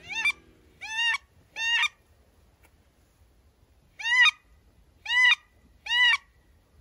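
Wood duck squeal calls: three rising, hooked squeals about a second apart, a pause of about two seconds, then three more.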